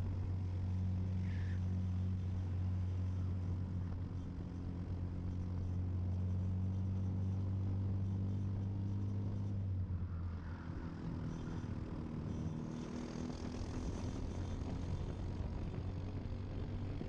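Briggs & Stratton LO206 four-stroke single-cylinder kart engine running, heard onboard. It holds a steady note for about ten seconds, then the pitch shifts and varies as the kart slows and picks up speed again.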